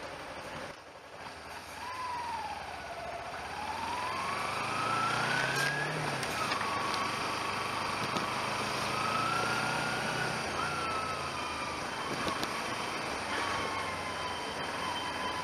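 Vehicle running at low speed, its engine a low steady drone, with a thin whining tone that rises and falls irregularly throughout.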